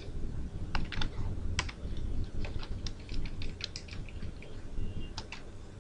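Computer keyboard being typed on: irregular, quick keystroke clicks, several in a second at times, with short pauses between runs.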